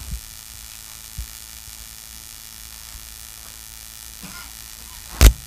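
Steady electrical hum and hiss from the recording or sound system, with a soft low thump about a second in and a sharp click near the end.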